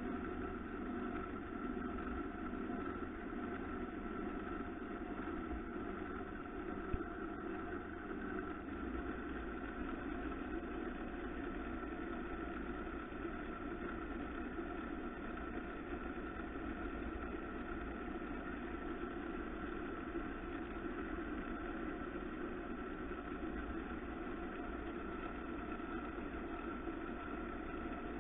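Wood lathe running steadily with a constant motor hum while a cloth is pressed against the spinning turned workpiece to polish it. A single short click sounds about seven seconds in.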